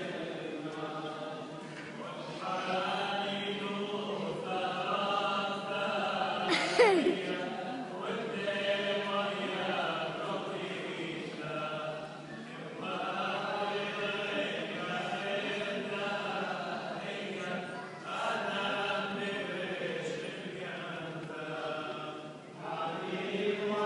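Liturgical chant sung in phrases of a few seconds, with short breaks between them. About seven seconds in, a brief sharp sound sliding down in pitch cuts through, the loudest moment.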